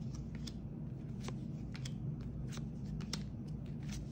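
2022 Topps MLS trading cards being flipped through by hand, one card slid off the stack after another, making a dozen or so short, irregular flicks of card stock against card stock over a faint low hum.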